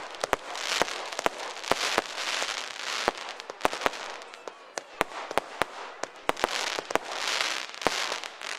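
Fireworks going off: a rapid, irregular string of sharp bangs and cracks over a hissing, crackling shower that swells and fades several times.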